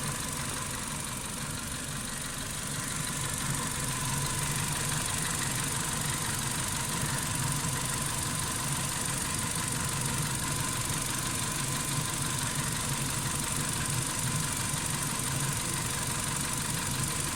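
Car engine idling evenly and quietly, hot after a drive, with no hydraulic lifter knock to be heard.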